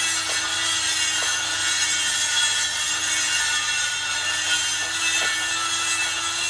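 Steady rasping of a power tool working the aluminium wheel, cutting or abrading the metal, over a constant motor tone.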